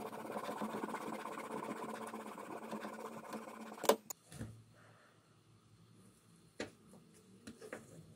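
Small hacksaw sawing back and forth through a small part clamped in a bench vise. The sawing stops with a single sharp, loud clack about four seconds in, followed by a few faint knocks.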